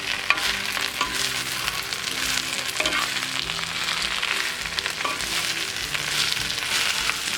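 Thuthuvalai (Solanum trilobatum) leaves sizzling in hot gingerly (sesame) oil in a pan as they are stirred and sautéed to wilt them, with small clicks from the stirring.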